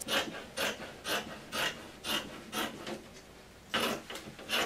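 A pair of scissors cutting through woven upholstery fabric: a steady run of short snips, about two a second, with a couple of closer-spaced snips near the end.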